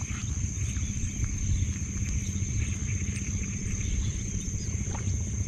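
Steady high-pitched insect trill over a low rumble, with a few short chirps.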